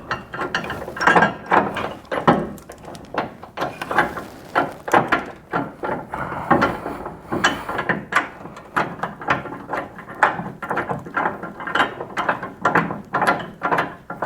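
Hand ratchet wrench clicking in quick, uneven strokes, running in bolts on a subframe connector.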